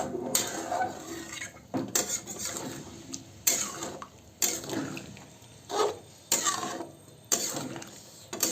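A spoon stirring chicken curry in a cooking pan, scraping through the curry and knocking against the pan about once a second.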